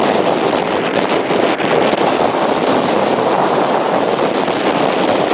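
Strong wind rushing over the microphone: steady, loud wind noise with no breaks.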